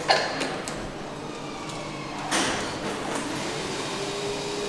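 Sharp metal clanks from a crankshaft handling fixture on an engine assembly station, one just after the start and another about two seconds in, over steady factory noise.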